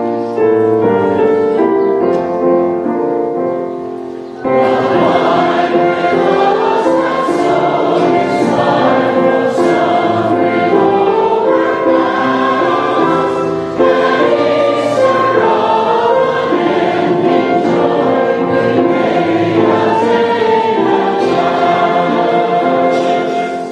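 A church choir sings with instrumental accompaniment. The voices come in fuller about four and a half seconds in.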